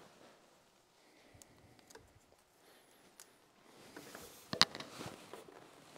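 Faint handling sounds: an adhesive-backed LED strip and its wiring being pressed into place by hand, a few light ticks and rustles, with one sharp click about two-thirds of the way through.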